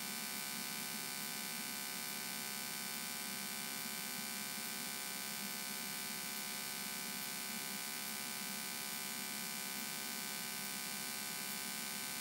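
Cessna 172N's four-cylinder Lycoming engine and propeller droning steadily in cruise descent, heard from the cockpit as an even, buzzy hum.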